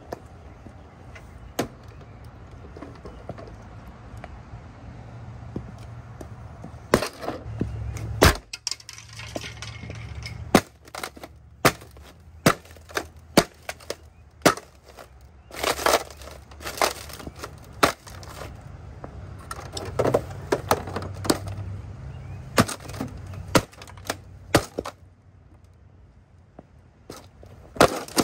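Ariat Rambler boots stomping down again and again on a small Sylvania LCD TV, its plastic case cracking and breaking under the heels. The sharp stomps start about a quarter of the way in and come in quick runs, with a pause near the end before one last hit.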